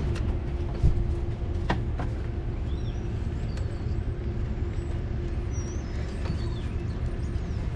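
Steady low rumble of a vehicle engine running nearby, with a steady hum over it. Two short knocks come about one and two seconds in, and faint bird chirps are heard in the middle.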